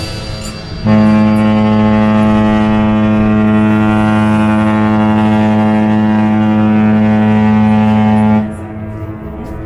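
A large cruise ship's horn sounding one long, low, steady blast of about seven and a half seconds. It starts about a second in and stops shortly before the end.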